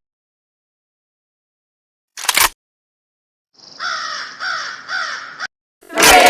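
Three harsh crow caws in a row, each falling in pitch, set against dead silence. They come after a brief noisy burst a couple of seconds in. Near the end a loud falling cry cuts in.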